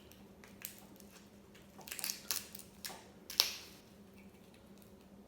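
Crab leg shells cracking and clicking as they are broken and picked apart: several sharp cracks between about half a second and three and a half seconds in, the last the loudest, over a faint steady hum.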